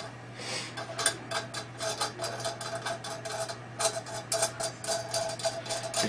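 Steel nuts being spun by hand down a threaded steel bolt, clicking and rattling on the threads in quick, irregular ticks with a light metallic ring.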